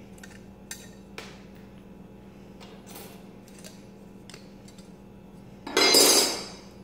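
Steel pancake die handled and opened to free the punched-out silver blank: a few light metal clicks and clinks, then a louder metallic clatter about six seconds in that dies away within a second.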